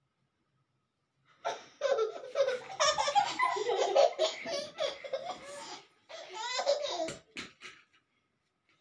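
Hearty laughter in a long fit that starts about a second and a half in, then breaks off and comes back in a shorter burst near the end.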